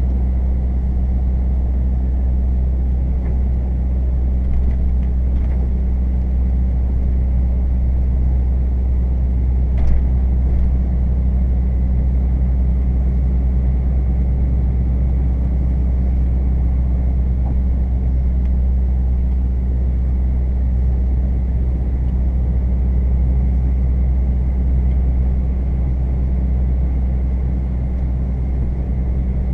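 DAF CF 400 truck's diesel engine and tyre noise heard from inside the cab while driving, a steady low drone, with one short click about ten seconds in.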